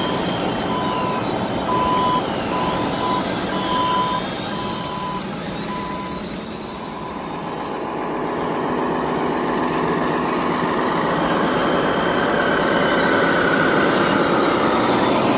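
Reversing beeper on a radio-controlled model truck, a single-pitched beep about twice a second that stops about six seconds in. Underneath are steady background noise and high motor whines that rise and fall.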